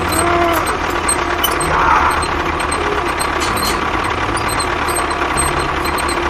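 Tractor engine running steadily at idle with a low rumble.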